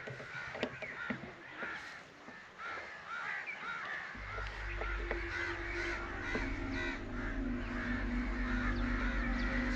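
A large flock of crows cawing continuously, many harsh calls overlapping. A low steady hum with a few held tones comes in beneath the calls about four seconds in.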